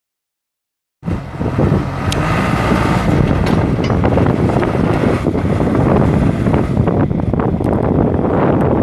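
John Deere 410D backhoe's 4.5-litre four-cylinder turbo diesel engine running steadily; the sound cuts in suddenly about a second in.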